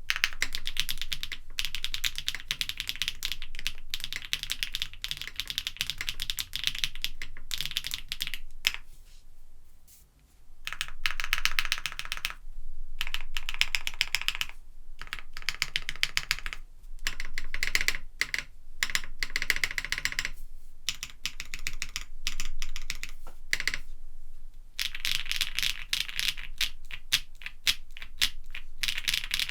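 Typing on a KBDfans Tiger80 Lite mechanical keyboard with factory-lubed HMX Windlight linear switches, a polypropylene plate and CMK keycaps. Fast runs of keystrokes are broken by short pauses, the longest about ten seconds in.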